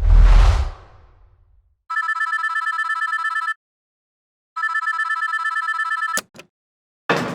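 Office telephone ringing twice, each ring a rapid trill on a steady pitched tone lasting about a second and a half, with a pause between, followed by two sharp clicks. It is preceded by a low thump fading out over the first second.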